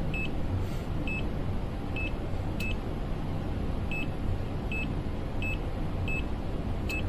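HABOTEST HT121 pen-type multimeter's buzzer sounding short high beeps, about one a second at uneven spacing, during its phase rotation test. A steady low hum runs underneath, and there are two sharp clicks.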